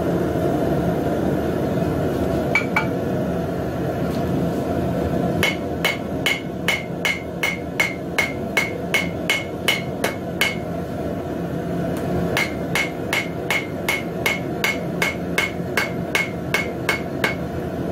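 Small cross-peen hammer striking a forged metal leaf to chisel in vein lines: two light taps, then two runs of quick, ringing blows about three a second, separated by a short pause. A steady low rush runs underneath.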